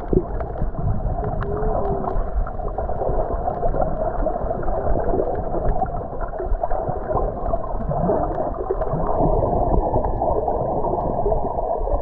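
Water heard through a submerged camera: a dull, muffled churning with scattered small clicks, the high end cut off.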